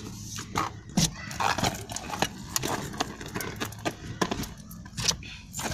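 Scattered sharp clicks and knocks over a steady low hum inside a car.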